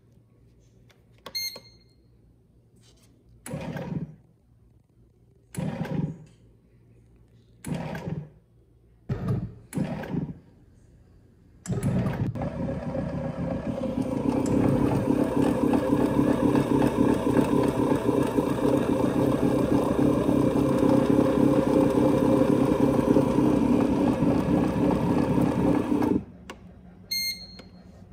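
Oster bread machine on its dough cycle. It beeps once, then the kneading motor turns the paddle in five short pulses before running steadily for about fifteen seconds and stopping suddenly. A second beep comes near the end.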